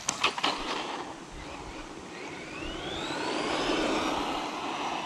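Electric RC car motor whining and rising steadily in pitch as the car speeds up, growing louder toward the end and easing off, after a few sharp clicks at the start.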